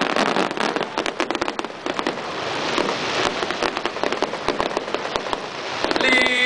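Fireworks crackling: a dense, fast stream of small sharp pops and crackles. A steady held tone comes in just before the end.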